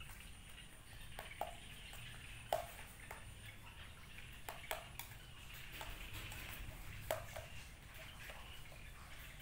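A metal spoon beating a wet minced-pork and fish-roe mixture in a stainless steel bowl, with sharp clinks of spoon on bowl at irregular moments, the loudest about two and a half seconds in and again about seven seconds in.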